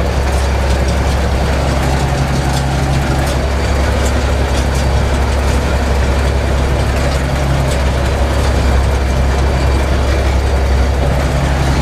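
Zetor 12145's six-cylinder diesel engine running at a steady, even pace, heard loud from inside the tractor cab as it drives across the field.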